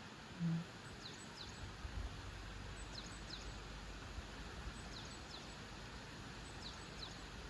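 Outdoor ambience with a bird calling: pairs of short, high, falling chirps repeated about every second and a half to two seconds over steady background noise. A brief low hum sounds once about half a second in.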